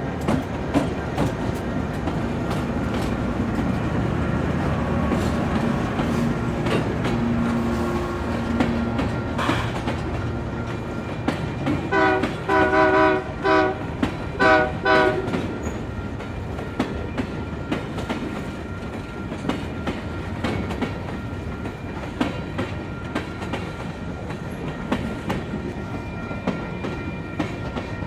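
Diesel freight train rolling past, its wheels clicking over rail joints, with a series of short locomotive horn blasts about halfway through.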